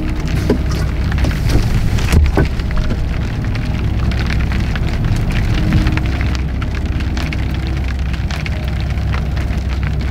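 Steady rain falling on a tarpaulin roof: a constant hiss with many small taps of drops, and a sharper knock about two seconds in.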